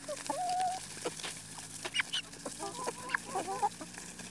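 Chickens giving short clucking calls while feeding: a group of calls about half a second in and another around three seconds. Scattered sharp clicks of beaks pecking feed run between them.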